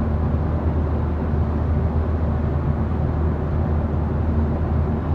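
Steady low drone of a car driving, engine and road noise heard from inside the cabin.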